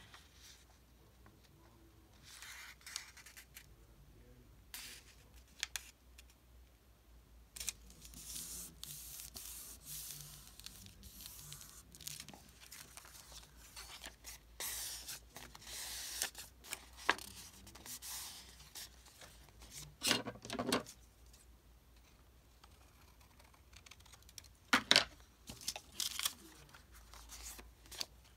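Paper being handled: sheets rustling and sliding against each other on a craft mat in irregular bursts, with a few sharp taps, the loudest a little before the end.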